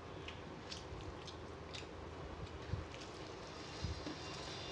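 Close-up eating sounds: a person chewing soft rice and mashed pumpkin eaten by hand, with wet mouth clicks and fingers mixing the food on a metal plate. There are two soft low knocks.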